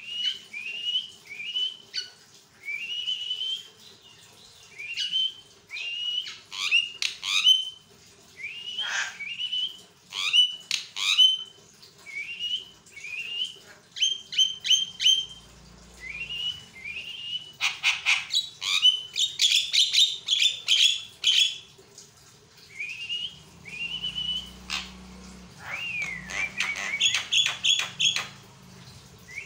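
Javan myna singing without pause: a long run of short rising whistles, clicks and harsh chattering notes, with stretches of rapid grating notes about two-thirds of the way through and again near the end.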